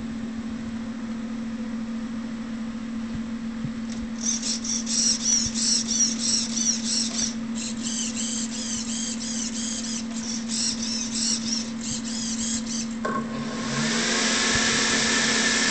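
Twin electric ducted fans on a large model jet running at low throttle with a steady hum, then spooling up near the end into a smooth, rising rush of air with a whine. In the middle there is an intermittent, rhythmic high chirping.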